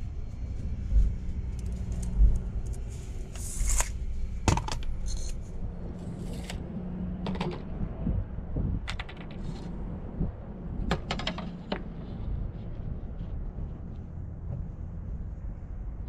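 Scattered light clicks, taps and knocks of a plywood sheet and small hand tools (tape measure, metal square, pencil) being handled on a folding table while a cut is measured and marked, over a low steady rumble.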